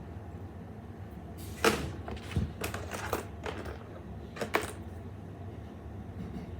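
Objects being handled at close range: a string of short clicks and knocks, the sharpest about a second and a half in and another about four and a half seconds in, over a low steady hum.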